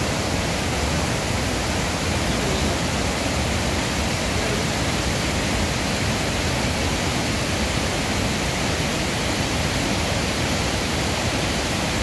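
White water rushing steadily over the rocky cascades of a waterfall.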